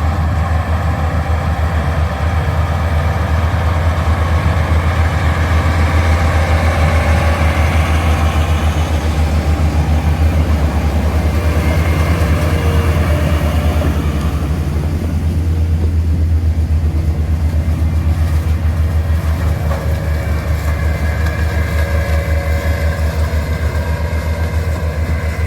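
OXBO 8430 sweet corn harvester running in the field, heard from inside its cab: a steady low engine drone with a busy layer of machinery noise above it. The higher machinery noise eases about halfway through.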